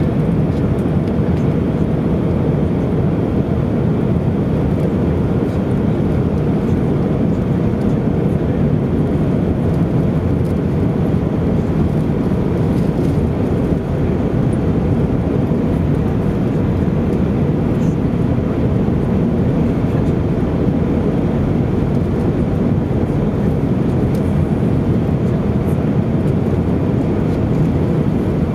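Airbus A319 cabin noise on final approach: the engines and the air rushing past the airframe make a steady, unbroken low noise, heard from a window seat over the wing.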